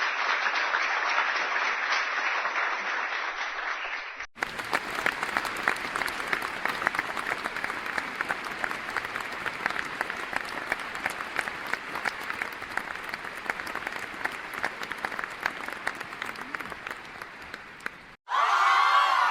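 Applause sound effects played back to back. The first is thin-sounding clapping that cuts off about four seconds in. The second is fuller applause of many hands clapping that slowly fades, and near the end it cuts to a crowd cheering and whooping.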